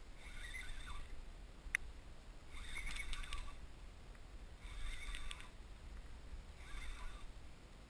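Fishing reel working in short bursts about every two seconds, under the load of a striped bass on a hard-bent rod. There is a sharp click about two seconds in and a low wind rumble underneath.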